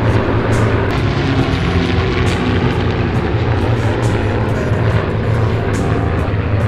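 Propeller-driven piston aircraft engine running steadily, a constant low drone with no rise or fall in level.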